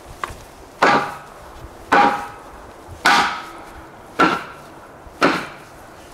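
Sledgehammer blows driving out the chainsaw-cut core of a pine log to hollow it into an owl nest box: five heavy wooden thuds about a second apart, each with a short ring.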